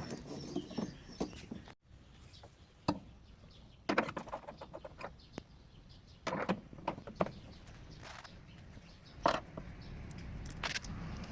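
Irregular metallic knocks and clinks from the parts and hand tools of a top-loading washing machine's gearbox being worked during disassembly, with a handful of separate strikes spread over the stretch.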